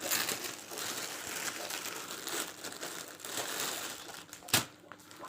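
Packaging wrapping being handled and crinkling steadily during unboxing, with one sharp click about four and a half seconds in.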